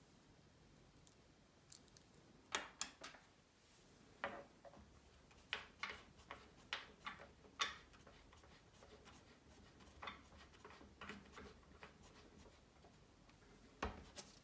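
Irregular light clicks and taps of small metal parts being handled on the bench: a watch case being set and clamped in a case holder under a caseback-opening press. The sharpest clicks come in a cluster a few seconds in and once more near the end.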